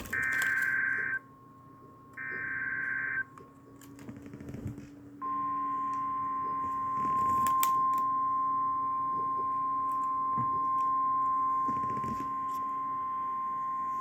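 Emergency Alert System signal from a NOAA Weather Radio broadcast. The last two bursts of the warbling SAME digital header come about a second long each, a second apart. About two seconds later comes the steady 1050 Hz weather-radio alarm tone, held for about nine seconds, which announces a warning (here a flash flood warning).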